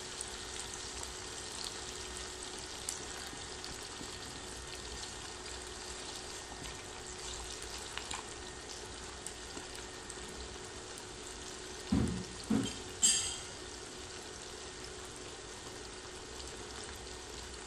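Kakrol (spiny gourd) halves and potato sticks shallow-frying in hot oil, a steady soft sizzle with small crackles. About twelve seconds in come two dull knocks and then a sharp clack.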